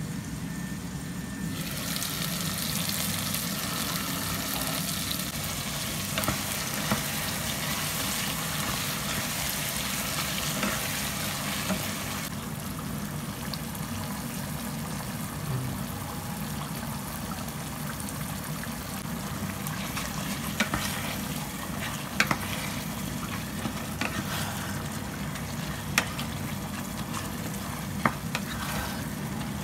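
Chicken curry sizzling in a pan, with a strong steady hiss that comes in suddenly about a second and a half in and eases off about twelve seconds in, once the soaked basmati rice is heaped on. In the second half a wooden spatula stirring the rice through the curry gives a few sharp knocks and scrapes against the pan.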